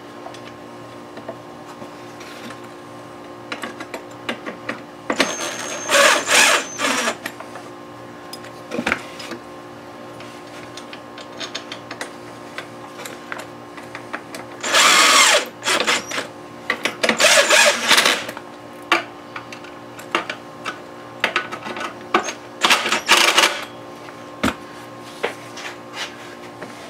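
Cordless drill-driver running in about four short bursts of one to two seconds each, driving fasteners, with a few small knocks between.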